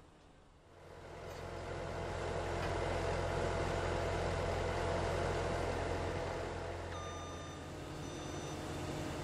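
The diesel engine of a Bobcat S770 skid-steer loader runs up, growing louder over the first couple of seconds and then holding at a steady run. Two short back-up alarm beeps sound near the end, about a second apart.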